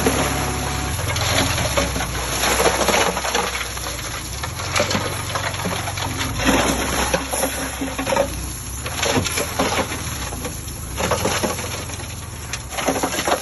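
Heavy-machinery diesel engine running low under a steady crackle and clatter of many small impacts.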